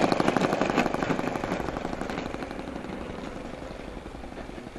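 ASP .70 four-stroke nitro glow engine of a radio-controlled Piper J3 Cub model running with a rapid, even popping beat, fading steadily as the model lands and rolls away.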